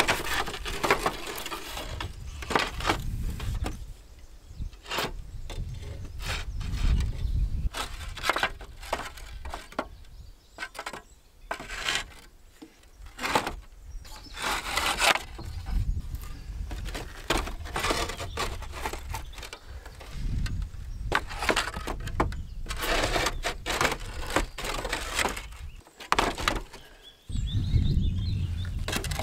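Old roof tiles being handled and laid over gaps in a roof, clattering and scraping in an irregular string of sharp knocks.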